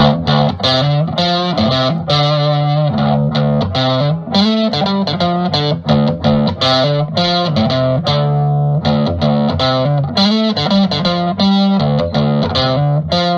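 Outro music: an electric guitar riff with distortion over a bass line, playing steadily throughout.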